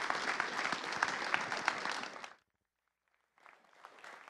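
Audience applauding, a dense patter of many hands clapping that cuts off abruptly about two seconds in. After a second of silence, fainter scattered clapping follows near the end.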